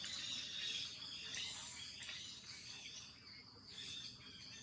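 Forest ambience: birds chirping over a steady, high insect drone.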